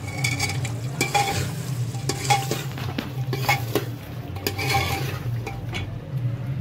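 A steel spoon stirring and scraping thick mutton liver masala in an aluminium pressure cooker, with sizzling and irregular clinks of metal on metal. A steady low hum runs underneath.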